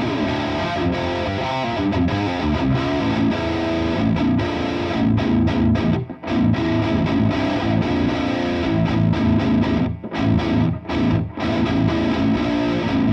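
ESP LTD EC-407 seven-string electric guitar played through a Mule high-gain amp, heavily distorted riffing with a few short stops.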